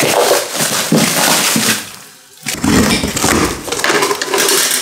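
Cardboard and plastic packaging being handled and pulled open, rustling and crinkling, with a short lull a little over two seconds in.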